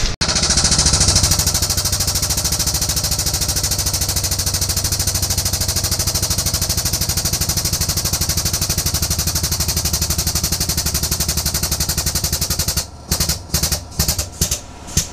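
Pneumatic air chisel hammering in one long continuous run with a rapid, even rattle and hiss of exhaust air, then stopping about thirteen seconds in and fired in several short bursts.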